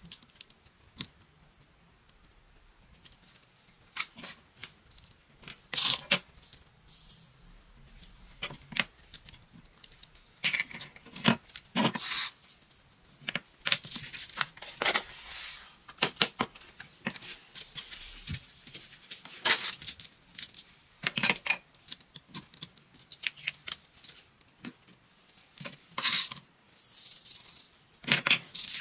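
Irregular scratchy rustles and hissing bursts of coloured craft sand being poured, rubbed and shaken over a sticky sand-art sheet. Among them is the crackle of the sheet's paper backing being picked and peeled off.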